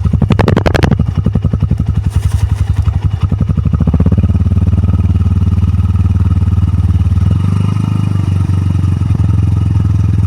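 Hero Xtreme 125R's single-cylinder 125 cc engine and exhaust running. The throttle is blipped briefly near the start, and from about four seconds in the engine holds a steady, faster speed.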